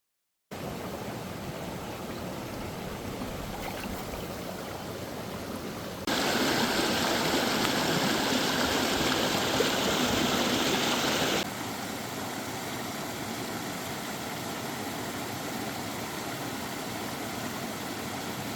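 Mountain stream flowing, a steady rush of water. It is much louder for about five seconds in the middle, where it starts and stops abruptly.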